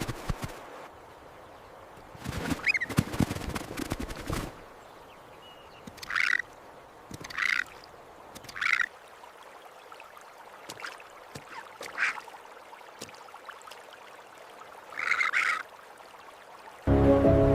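A raven calling: about six short, harsh calls spaced a second or more apart, after a stretch of crackling rustle. Music comes in near the end.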